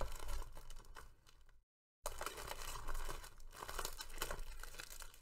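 Plastic shrink-wrap crinkling and tearing as it is peeled off a cardboard trading-card box, a dense crackle of small clicks. The sound cuts out completely for a moment about a second and a half in, then carries on.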